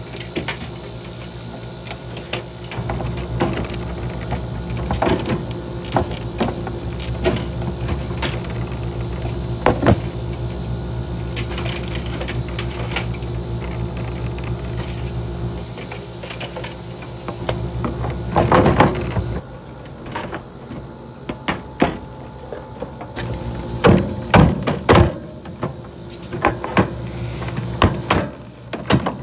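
1990 GE 12,000 BTU window air conditioner running with a steady hum, while its front grille is fitted back on with scattered clicks and knocks, the loudest near the end.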